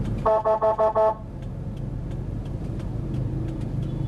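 A vehicle horn gives five short, rapid toots, the loudest thing here, over the steady low rumble of the car's engine and road noise heard inside the cabin.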